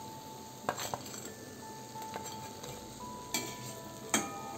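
A steel slotted spoon knocks and clinks against a wok and a plate as fried fritters are lifted out of hot oil. There are four sharp knocks, the loudest near the end, over a faint sizzle of frying oil.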